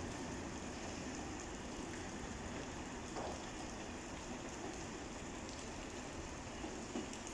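Steady rain falling on the tracks and platform canopy, with the low rumble of a departing train's coaches fading into the distance.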